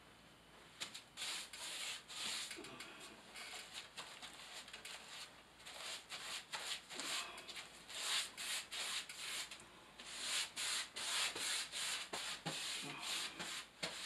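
Paintbrush scrubbing a thin first coat of liquid waterproofing membrane onto rough cement backer board, a run of quick, uneven brush strokes starting about a second in.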